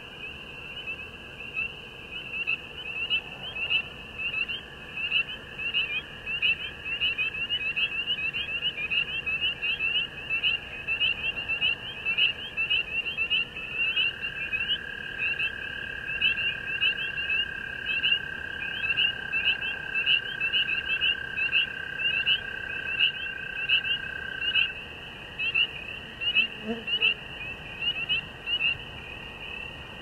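Chorus of frogs calling at a lake at dusk: many short, high, rising peeps overlapping, a few each second, with a long steady lower trill joining from about the middle until near the end. A brief low call sounds once near the end.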